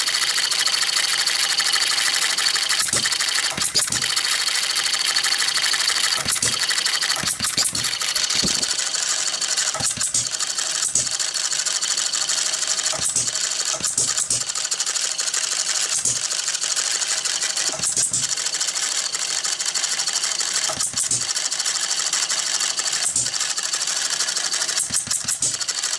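J.E. Howell 'Farm Boy' model hit-and-miss engine running on denatured alcohol: a steady light mechanical clatter from the valve gear and flywheels. A sharp firing bang comes every one to three seconds at uneven intervals as the engine fires and coasts.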